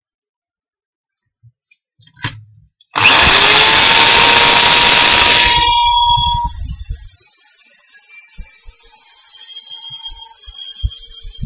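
Electric drill in a bench drill stand switched on, its motor spinning up with a rising whine and running very loudly for about two and a half seconds as it drills into a wood block. It then drops to a much quieter level, with a faint high whine and light knocks.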